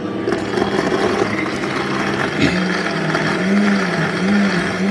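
Countertop blender running at speed, crushing ice cubes into a thick mango and coconut-milk mixture. The motor's pitch dips and recovers again and again in the second half as the ice loads it, with a single knock about halfway through.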